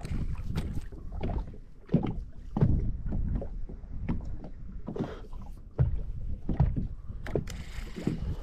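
Choppy lake water slapping against the hull of a small flat-bottomed boat, heard as irregular low thumps, with a few sharper knocks and a brief rushing hiss near the end.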